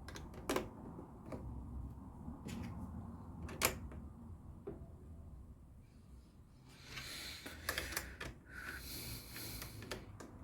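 Plastic LEGO pieces being handled and pressed together: a few sharp separate clicks, then about three seconds of rustling in the second half.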